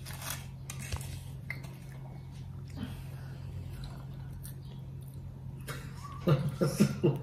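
Faint scattered clicks and taps of fingers picking at a paper plate on a glass table, over a steady low hum. A brief voice sounds near the end.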